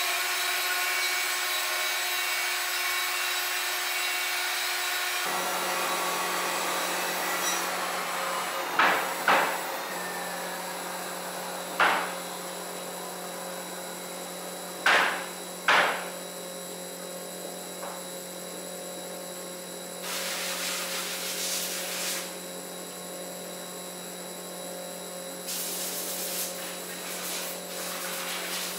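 Wood-Mizer LT50 band sawmill and shop machinery running in a steady hum, with about five sharp wooden clacks of sawn oak boards dropped onto a lumber stack.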